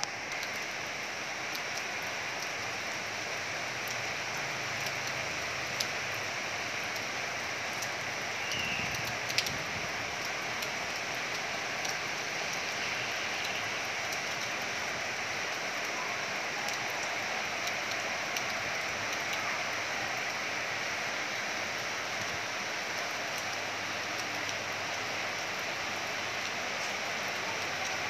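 Heavy rain falling steadily: an even hiss with scattered sharp drop ticks, two of them louder about six and nine seconds in.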